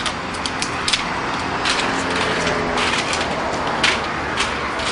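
Outdoor city street ambience: a steady rush of noise with many sharp clicks and knocks scattered through it.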